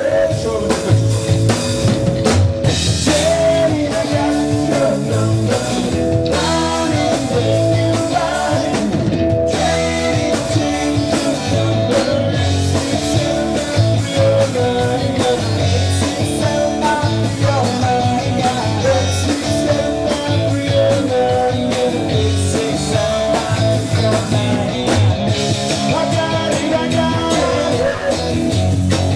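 Live rock band playing through a PA: electric guitar, bass guitar and drum kit, with a man singing into a microphone.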